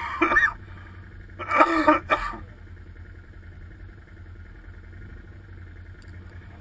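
Quad bike (ATV) engine running steadily at low speed, with two short loud bursts in the first two and a half seconds, the second about a second and a half after the first.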